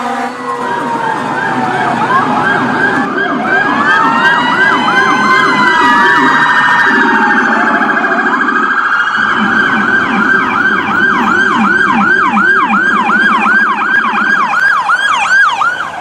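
Electronic emergency-vehicle siren, loud, cycling through its tones: slower wailing sweeps overlap early on, then a fast yelp falling in pitch about three times a second, with a lower second tone sounding under it.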